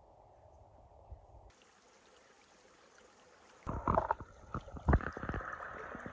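Faint outdoor ambience, then from about three and a half seconds in a steady rush of water with a run of sharp knocks over it.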